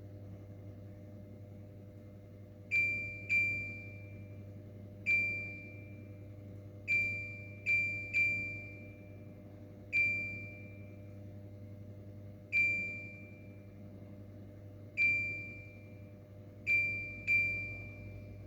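An LG ICE Series electric fan's beeper sounding eleven short, chime-like beeps, each with a sharp start and a quick fade. They come at irregular intervals, some in quick pairs, over a steady low hum.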